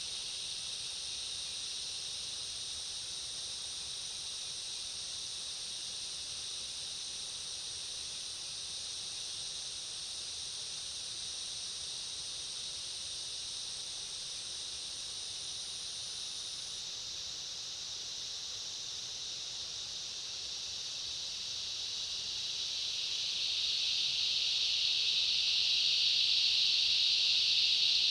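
Insect chorus, a steady high-pitched shrill drone. A thinner, higher voice in it stops about two-thirds of the way through. Near the end the chorus swells louder.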